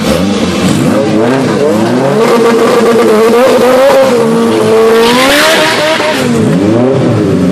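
Engines of a Honda Civic and an Acura Integra revving up and down at a drag-race start line. About five seconds in, the Civic launches with a short burst of tire squeal, and its engine pitch drops and climbs again as it pulls away.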